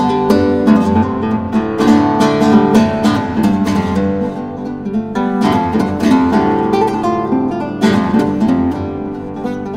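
Background music of acoustic guitar, plucked and strummed at a steady pace.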